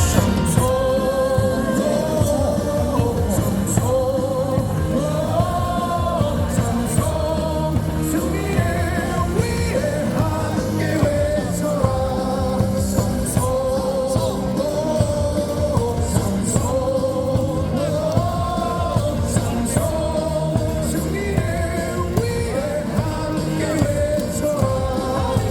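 A cheering song with singing and a steady beat, played over a baseball stadium's loudspeakers.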